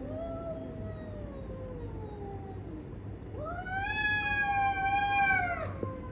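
Two tabby cats yowling at each other in a face-off before a fight. First comes a long wail that slowly falls in pitch, then a louder, longer one that rises, holds and drops away near the end.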